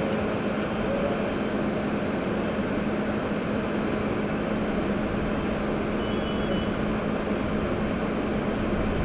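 Steady engine drone: a constant low hum over an even rushing noise, unchanging in level and pitch.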